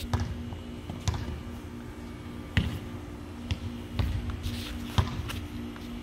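Irregular knocks and thumps, roughly one every second, over a steady low hum.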